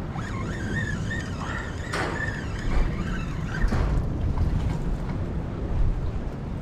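Wind rumbling across the microphone, with a few faint, high, wavering calls in the first couple of seconds and two short sharp knocks.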